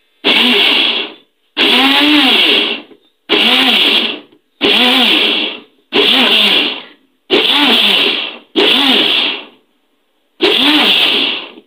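Silvercrest countertop blender pulsed eight times, about a second each with short pauses, chopping chunks of aloe vera leaf with the skin on into a paste. Each run the motor whines up in pitch and falls away as it stops.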